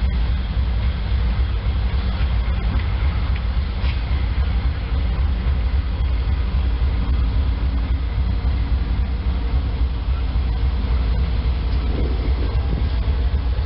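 GE C39-8 diesel-electric locomotive, with its 16-cylinder engine, rolling slowly toward the listener with a steady, deep engine rumble.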